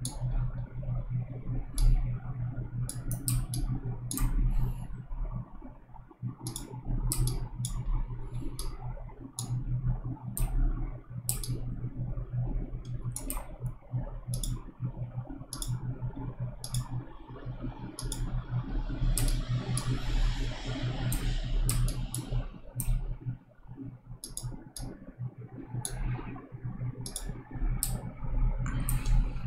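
Computer mouse clicking at irregular intervals, sometimes several clicks in quick succession, over a steady low hum.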